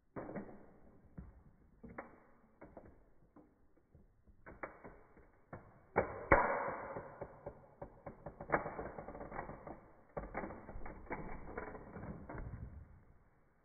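A toy Porsche 911 model car's roof and body creaking and cracking as a high-heeled shoe presses down on it: a string of clicks and snaps, the loudest about six seconds in, then dense crackling and crunching that dies away near the end.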